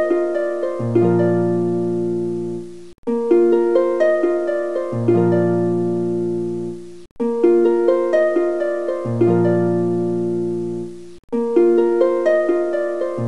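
Background music: a short plucked-string melody over low bass notes, looping about every four seconds, with a brief break between repeats.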